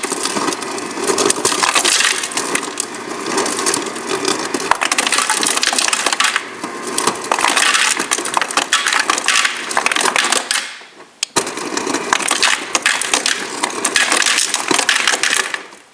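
Ice clattering and crunching in a loud, dense crackle of clicks, with a brief pause about ten and a half seconds in.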